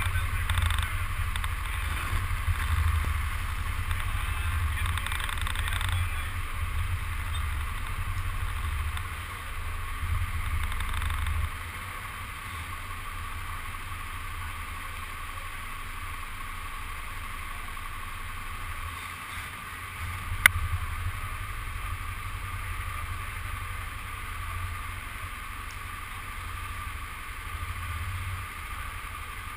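Steady din of an indoor go-kart hall with karts in the pits: a low rumble that is heavier for the first ten seconds or so, then settles into an even hum, with one sharp click about twenty seconds in.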